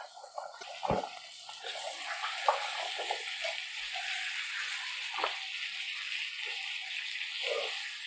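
Diced raw potatoes sizzling in hot oil and spice masala in a kadai, with a steady hiss. A steel spoon knocks and scrapes against the pan as they are stirred, with a strong knock about a second in.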